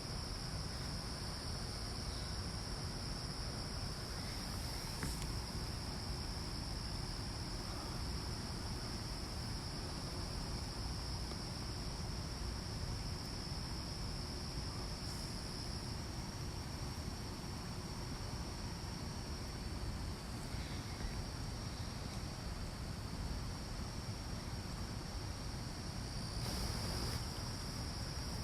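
Insects trilling in a steady high-pitched chorus, over a low steady background rumble.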